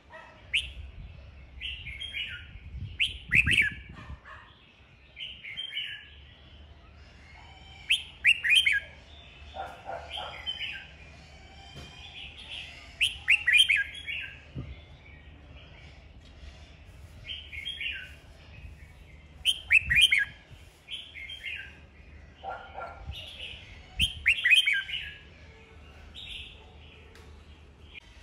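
Caged red-whiskered bulbul singing its competition ('fighting') song: short bright phrases repeated every second or two, with a louder phrase of quick sweeping notes about every five seconds.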